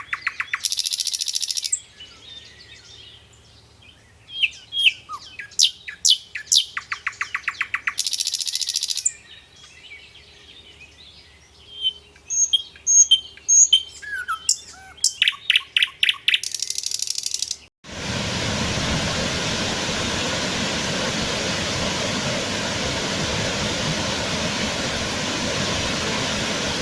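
Songbirds chirping and singing, with fast trills and short whistled glides. About two-thirds of the way through, this cuts abruptly to a steady rushing noise, like running water.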